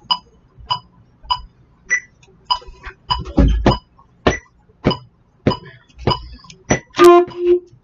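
Electronic metronome ticking steadily at about 100 beats a minute, setting the practice tempo. A low thump comes about three seconds in, and near the end the alto saxophone plays two short notes, louder than the ticks.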